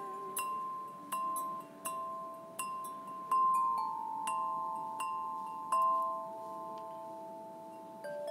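Single bell-like notes plucked or struck one at a time on a clear acrylic lap-held string instrument, about one every 0.7 s, each ringing on under the next. The notes pause for about two seconds near the end, then one more note sounds.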